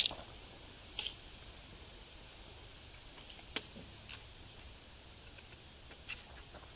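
A few faint, sharp clicks scattered over a quiet background, the first and loudest right at the start.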